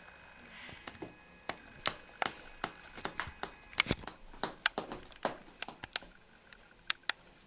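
Typing on a computer keyboard: a string of uneven key clicks, several a second.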